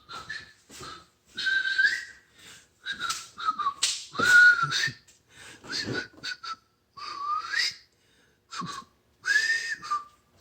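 A string of short, high whistling squeals with breathy noise, each gliding up or down in pitch, separated by brief silences.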